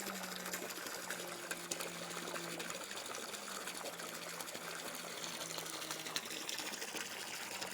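Backyard waterfall running, a steady splashing of falling water, with a faint low hum underneath.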